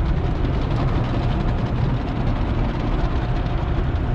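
Automatic car wash equipment working over the car, heard from inside the cabin: a steady low rumble with a hiss on top.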